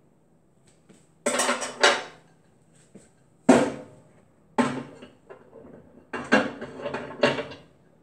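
Hard clattering and knocking of parts being set inside a new microwave oven's cavity, with short ringing after each knock. The knocks come in several clusters.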